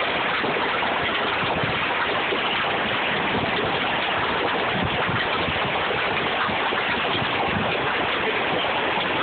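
Hail coming down hard in a storm, a dense, steady clatter of countless small impacts.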